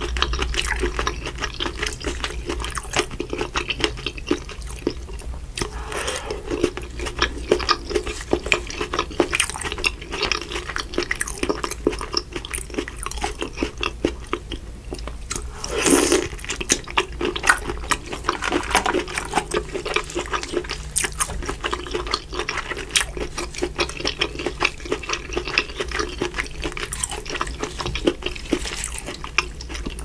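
Close-miked eating of a seafood boil in butter sauce: continuous wet squelching, smacking and chewing as gloved hands work the saucy seafood and it is eaten. There is a louder wet sound about halfway through.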